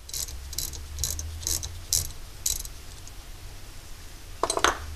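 Ratcheting wrench clicking in short runs about every half second as it is worked back and forth on a nut welded to a seized brake bleeder screw on a cast-iron caliper, easing the broken bleeder out. About four and a half seconds in comes a louder cluster of metal clicks.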